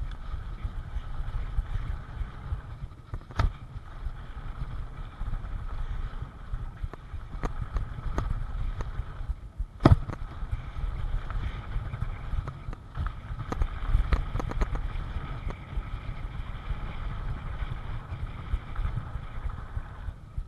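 Wind rushing over the microphone of a helmet-mounted camera as a full-suspension mountain bike rolls fast down a dirt trail, with a steady low rumble from the tyres and frame. Short clicks and rattles from the bike over bumps come throughout, with a sharp knock about ten seconds in and another about three seconds in.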